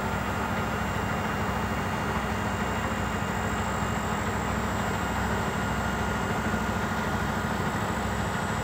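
Heavy diesel engine of a tractor-trailer idling, a steady low hum with no change in speed.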